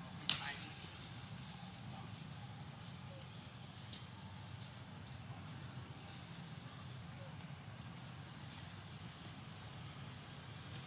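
Steady high-pitched drone of insects over a low, even rumble, with one short, sharp high chirp that falls in pitch about a third of a second in.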